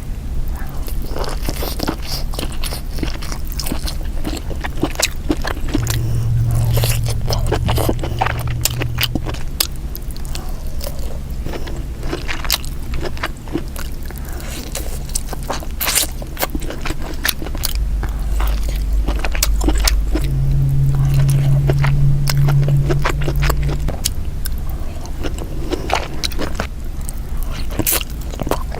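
Close-miked eating: chewing and biting, with many sharp clicks and scraping sounds throughout.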